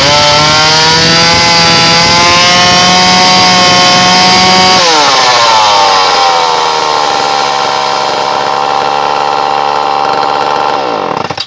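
Homelite EZ Automatic two-stroke chainsaw running at high revs, then throttling back to a lower steady speed about five seconds in, before the sound cuts off near the end. It is running on fresh fuel after a carburetor adjustment, and the owner thinks the carb could use a little more fine tuning.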